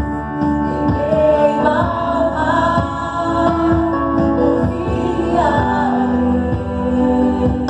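Live worship band music: a keyboard holding sustained chords under sung vocal melody lines.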